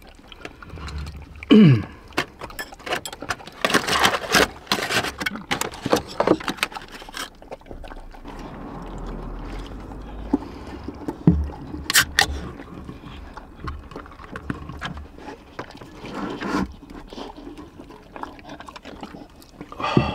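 A spaniel eating and licking from a stainless-steel bowl: quick wet chewing and lapping with clinks of the bowl, busiest in the first several seconds, then a few isolated sharp clicks.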